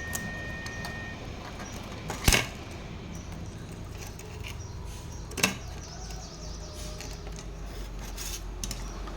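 Small metal objects being handled during a repair: two sharp clicks or knocks about three seconds apart, the first the louder, among faint light ticks over a low steady hum.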